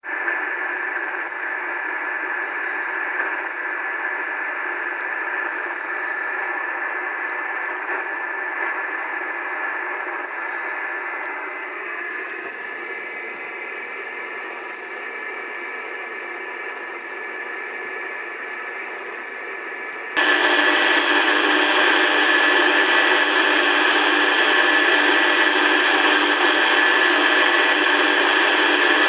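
HF amateur radio receiver putting out a steady interference hiss laced with faint constant tones, the noise that blankets the HF bands and which the operator puts down to a switching-mode power supply. About 20 seconds in, the hiss suddenly grows louder and wider.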